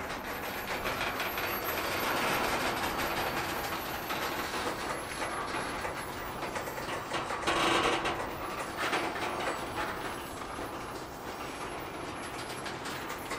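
Train cars rolling past on the rails: a steady rumble of wheels with continual clicking over the rail joints, briefly louder about eight seconds in.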